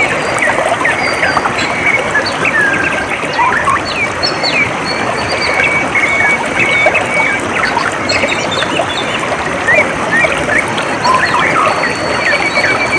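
Water trickling steadily, with many small birds chirping and whistling over it and a rapid trill near the end.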